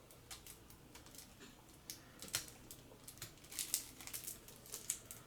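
Playing cards and their plastic packaging being handled, giving faint, irregular crinkles and light clicks with a few sharper ones about two seconds in and near four seconds.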